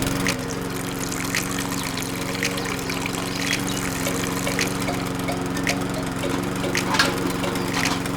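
A small electric motor running steadily with an even hum after spinning up just at the start, with scattered light clicks and crackles over it.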